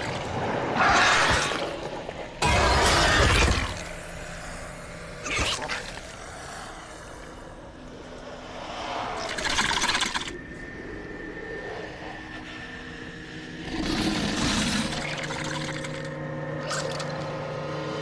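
Creature-film sound effects: a string of loud, rough whooshes and crashes, the loudest about three seconds in, over low steady droning tones that come in during the second half.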